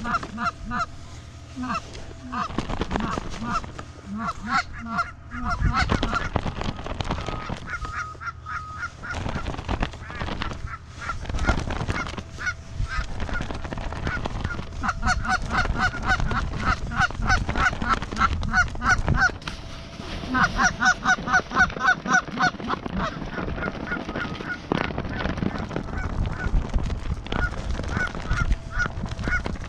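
Canada goose honks and clucks in quick runs of short notes, repeated again and again, with a few sharp knocks among them.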